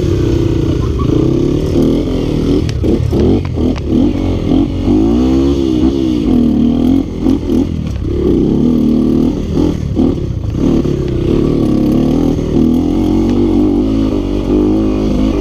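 Yamaha Vixion trail motorcycle's single-cylinder four-stroke engine revving up and down repeatedly under throttle, with bursts of clatter and knocks. The owner says the engine is leaking compression and pulls weakly.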